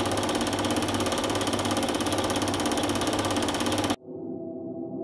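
Film projector running: a fast, even mechanical clatter that cuts off suddenly about four seconds in. A gong then begins to ring and swell.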